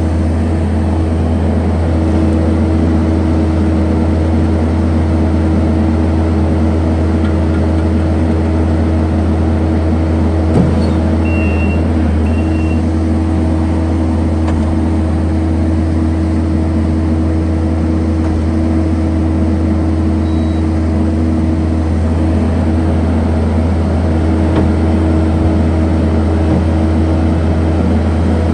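Kubota SVL75-2 compact track loader's four-cylinder diesel engine running steadily at a constant speed, with a single knock about ten seconds in.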